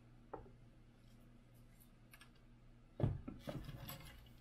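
A light knock, then about three seconds in a sharp thump followed by a second of smaller knocks and rattles: a small aluminium-framed Voron V0 3D printer being turned round and set down on a wooden workbench.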